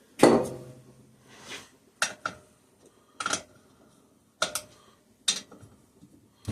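Hand tools clinking and knocking against metal while bolts are being worked loose by hand on an engine: a loud clank with a short ring at the start, then a handful of single sharp metallic clinks a second or so apart.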